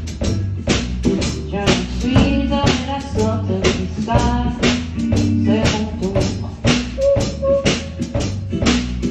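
Music with a steady drum beat and a bass line.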